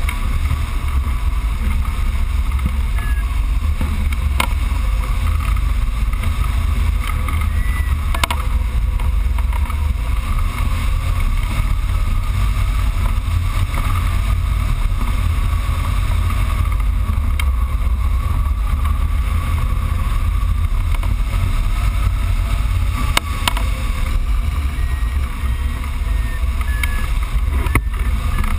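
Steady wind rush and rumbling buffeting of the airflow over the camera microphone on a hang glider in flight.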